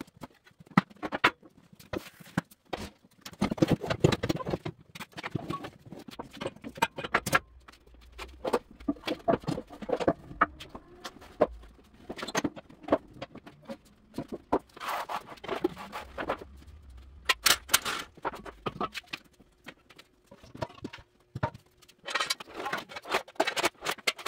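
Irregular clanks, knocks and scrapes of metal parts, tools and gear being handled, set down and shifted about.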